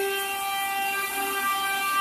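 Steady machine whine with a row of even overtones over a hiss, the lowest tone dipping briefly about a second and a half in.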